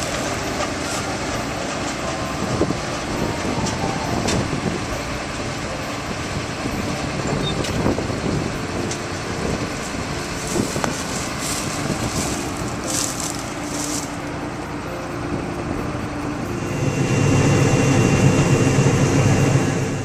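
John Deere combine with a Shelbourne stripper header working standing wheat: the engine and the header's machinery run steadily, with scattered clicks, and grow louder about three seconds before the end.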